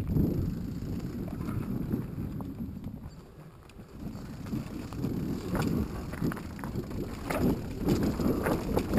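Mountain bike riding down a rocky, gravelly trail: tyres crunching over loose stones and the bike rattling, with wind on the microphone. It eases off briefly about three seconds in, then the clattering over stones grows busier.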